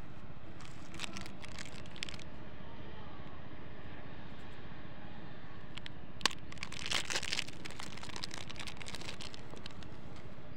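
Plastic lollipop wrapper crinkling as it is handled and torn open, in two bouts, the second starting with a sharp click. A steady low rumble runs underneath.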